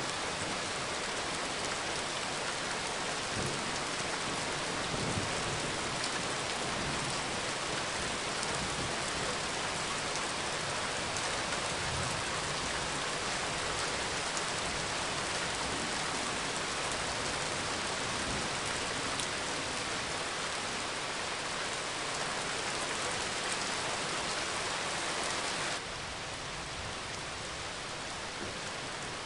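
Steady rain falling, an even hiss of many drops. Near the end it suddenly becomes a little quieter.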